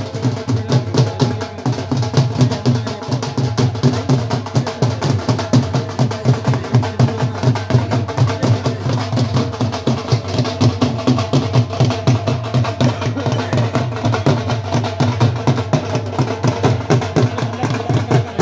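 Several dhols, double-headed barrel drums played with sticks, beating together in a fast, steady rhythm.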